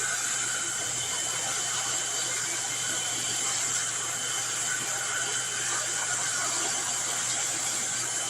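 Pet grooming blow dryer running steadily: a constant rush of air with a high-pitched whine.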